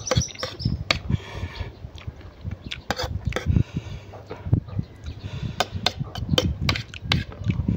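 Close-up eating sounds: chewing and slurping noodles, with a metal fork clicking and scraping against a ceramic plate many times at an irregular pace.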